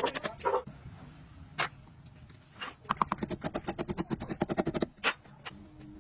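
Metal tool clicks during truck axle work: a single click, then a fast, even run of clicks at about ten a second for about two seconds, and another single knock near the end.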